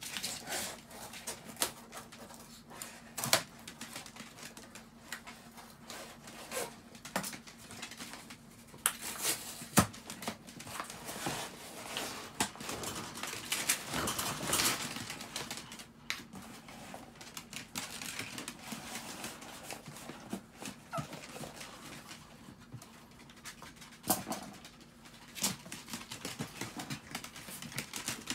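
Chihuahuas moving about and playing, with irregular clicks, taps and rustles and a denser stretch of scuffling about halfway through.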